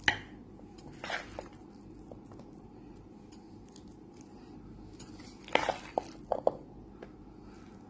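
A spoon scrapes and knocks against a mixing bowl while scooping a soft, wet chickpea-and-potato chaat mixture. There is one sharp knock at the start, a scrape about a second in, and a quick run of four or five knocks about two-thirds of the way through.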